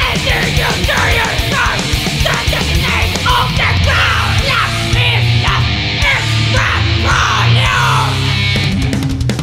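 Thrash metal band playing at full tilt: distorted electric guitars, bass and drums, with bending melodic lines over a driving low end.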